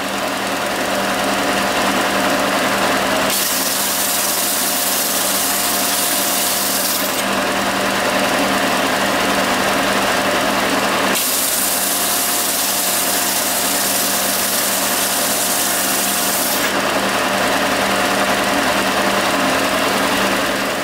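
Peugeot benchtop belt sander running steadily, its abrasive belt rasping against a knife handle piece held down on it. Under a steady motor hum the hiss grows brighter for a few seconds twice.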